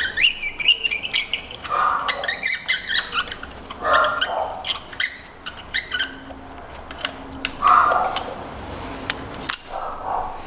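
Ratchet clicking in quick runs while a long-unremoved spark plug is unscrewed from its well with a socket and extension, with a few short squeaks in between.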